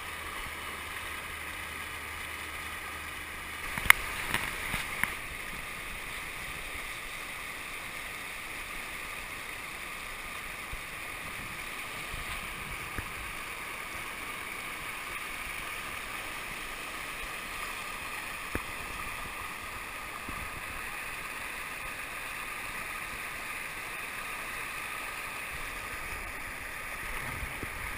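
Whitewater rapids rushing steadily, with a few sharp knocks about four to five seconds in.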